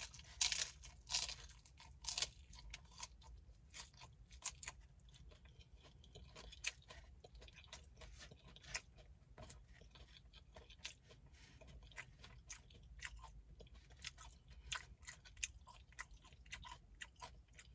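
Close-up chewing and crunching of a hard-shell ground beef taco. There are a few loud crunchy bites in the first couple of seconds, then a steady run of smaller crunching chews.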